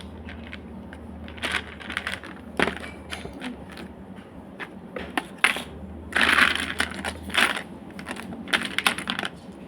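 Small plastic slime charms clicking and clattering as they are rummaged through and picked out, in irregular bursts with a longer rattle about six seconds in.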